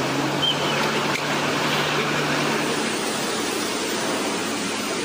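Steady rushing noise of flood-swollen river water and rain, even and unbroken, with a faint low hum under it for the first few seconds.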